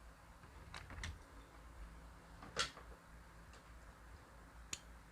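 A few faint clicks and light knocks from Glock 19X pistol parts being handled during field-stripping, the sharpest about two and a half seconds in.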